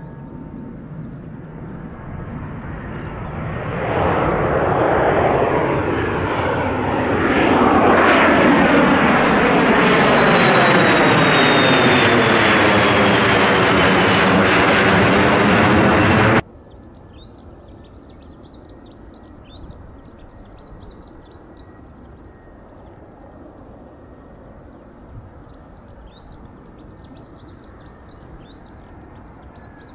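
An aircraft's engines passing close, the noise swelling over several seconds to a loud peak with a high whine falling in pitch. It cuts off suddenly about halfway through, leaving a quiet background with birds chirping in two short runs.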